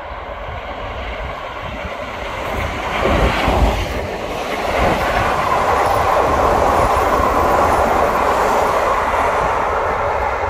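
Diesel-hauled passenger train, with an SU45 diesel locomotive, running on the rails: the rumble builds to its loudest, deepest point about three to four seconds in, then gives way to a steady, loud rolling noise of the carriages with some clickety-clack.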